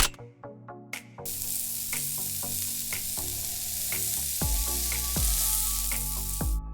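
A steady hissing noise sets in about a second in and cuts off just before the end, over background music with a soft beat.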